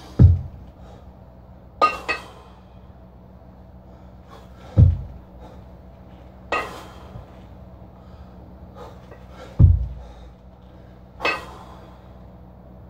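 Double kettlebell lifting: three heavy, deep thuds about five seconds apart as the two kettlebells land back in the rack on the lifter's chest, each followed about two seconds later by a sharp forceful breath.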